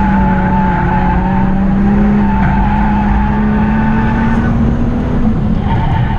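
Volvo V60 Polestar engine pulling hard at steady revs, heard from inside the cabin, with the tyres squealing as the car is thrown through the turns; the revs drop off near the end.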